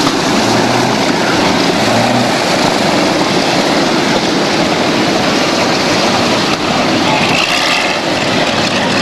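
Lockheed P-38 Lightning's two Allison V-12 engines running as the plane taxis past, a loud steady engine and propeller noise.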